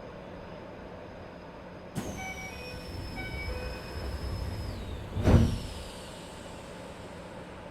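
Keisei 3050-series commuter train's passenger doors working at a station stop. A sudden hiss and high whistle about two seconds in, with a few short beeping tones, then the sliding doors meet with a heavy thump about five seconds in.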